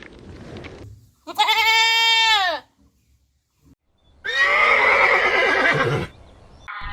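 Two separate calls from a farm animal, with a short silence between them. The first is a clear, pitched call of about a second that drops in pitch at its end. The second is longer, rougher and quavering.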